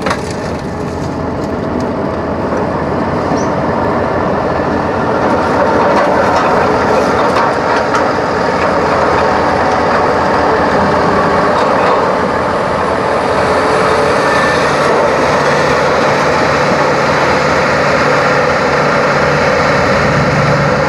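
Pickup truck running and rolling slowly over rough yard ground, heard from inside the cab as a loud, steady mix of engine and driving noise.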